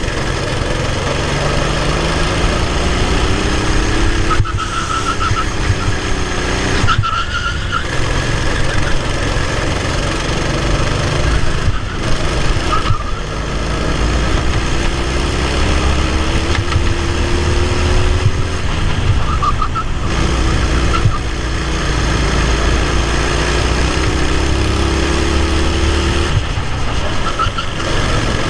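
Racing kart engine heard from on board, revving up along the straights and dropping back sharply when the driver lifts for the corners, several times over.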